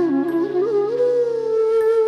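Slow instrumental background music: a single melody line of long, sliding notes over a sustained backing.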